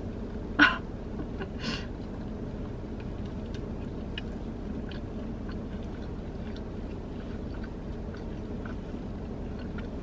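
A bite into a chili cheese dog, then close-up chewing with small wet mouth clicks, over a steady low hum.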